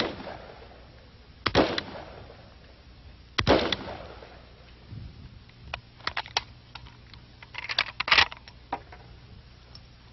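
A semi-automatic hunting rifle fired three single shots, one per trigger pull, about two seconds apart, each with a short echo. Later comes a run of lighter clicks and knocks.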